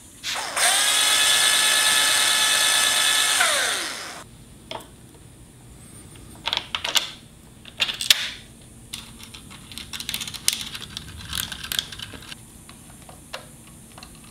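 Cordless drill running at full speed for about three seconds, a steady whine that winds down as the trigger is let go. Then small clicks and knocks of screws and a metal camera mount being fitted by hand.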